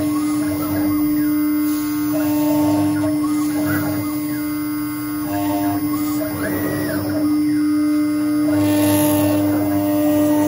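Desktop 6090 CNC router engraving: the spindle gives a loud, steady hum throughout. Over it come stepped tones that start, stop and change pitch as the cutting head moves between strokes, with one tone rising and falling about two-thirds of the way through.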